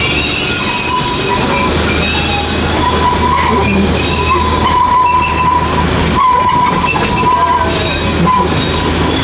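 Darjeeling Himalayan Railway narrow-gauge toy train running, its wheels squealing against the rails in a high whine that comes and goes several times over a steady rumble and rattle.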